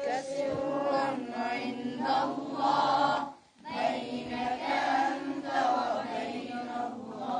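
A group of boys singing an Islamic nasheed together, voices only, with a short pause for breath about halfway through.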